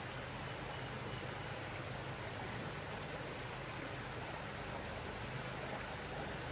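Steady rush of a flowing trout stream.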